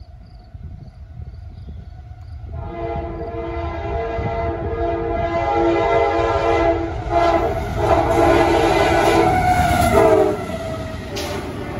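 CSX freight locomotive's air horn sounding several blasts as the train approaches, the last one long and dropping in pitch just as the locomotive passes before it cuts off. Underneath, the steady rumble and clatter of the double-stack intermodal train rolling by grows louder.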